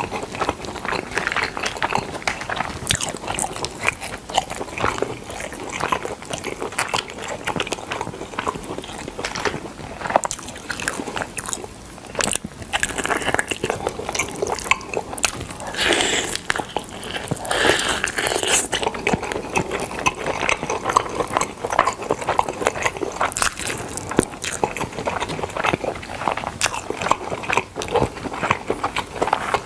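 A person chewing and biting smoked chicken: a dense, continuous run of small clicks and smacks from the mouth.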